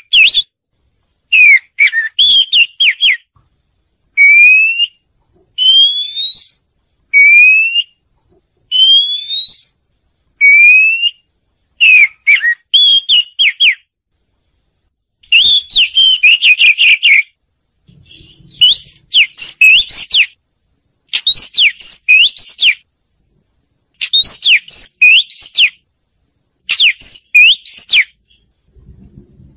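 Oriental magpie-robin singing loud whistled phrases of one to two seconds, separated by short pauses. In the middle stretch it repeats a single rising whistled slide; later the phrases become quick runs of sharp up-and-down notes.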